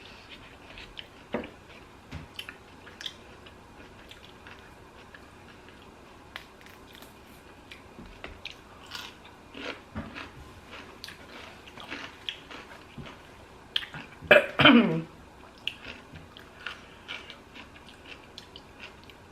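A person chewing and biting a lettuce-wrapped sandwich close to the microphone, with small wet mouth clicks throughout. About fourteen seconds in there is a brief, louder throat or mouth sound that falls in pitch.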